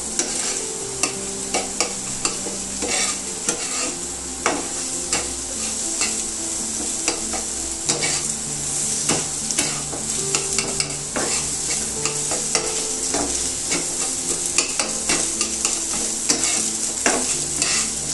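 Beaten eggs sizzling in hot oil in a frying pan while a utensil stirs and breaks them into crumbles, with frequent sharp clicks and scrapes against the pan.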